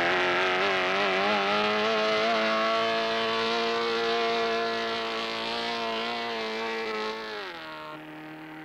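Evinrude V4 two-stroke racing outboard, a 90-cubic-inch four-cylinder with tuned stacker exhausts, running just after being hand-cranked. Its revs waver up and down, hold steady, then drop to a lower idle near the end.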